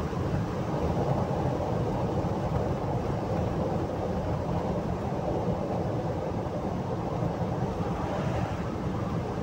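Steady, deep road and engine noise heard inside the cabin of a moving car.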